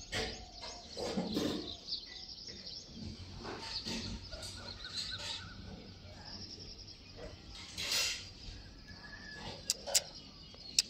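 Birds chirping in the background of an open rural scene, with two sharp clicks near the end.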